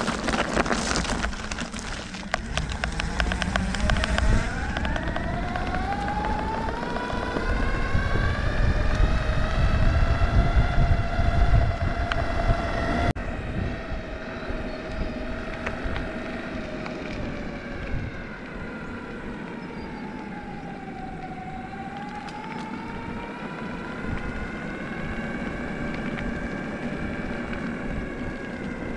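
Electric skateboard motor whine over a steady low wheel rumble. The whine climbs in pitch as the board speeds up through the first dozen seconds, dips briefly as it slows about two-thirds of the way through, then climbs again.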